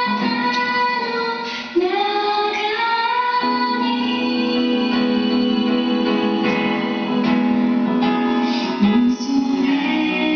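Background song: a woman singing long held notes over instrumental accompaniment.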